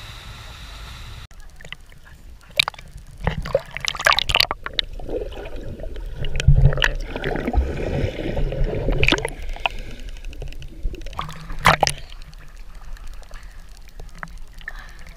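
Sea water splashing and gurgling around a camera that a swimmer dips under the surface and brings back up, with several sharp splashes and a churning underwater bubbling through the middle.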